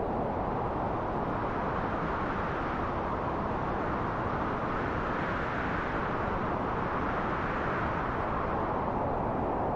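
Wind blowing as a steady rushing noise, swelling into a stronger gust about halfway through and easing back again.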